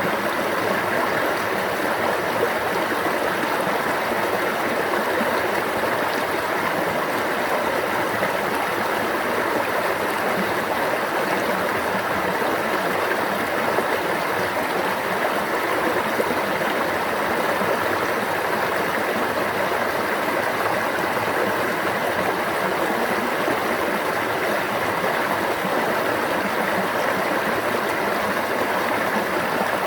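Stream water running and babbling steadily, an even rush with no breaks or changes.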